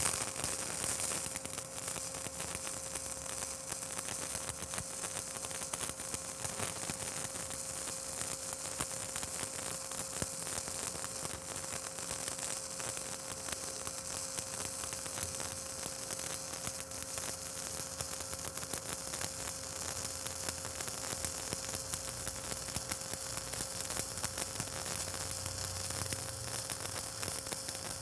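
Stick-welding arc of a 3/32-inch 7018 electrode running steadily on DC electrode positive at about 85 amps, a continuous crackling sizzle with a steady hum under it. It is a vertical-up weave fill pass burning into a 6010 root.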